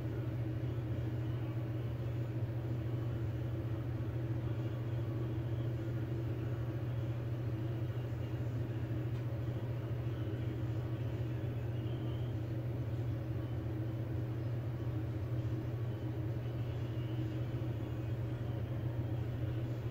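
Steady low hum over constant background noise, with no distinct events.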